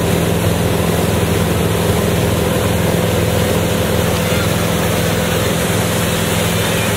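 Ski boat's engine running steadily at towing speed, a constant low drone, under the rush of water churning in the wake.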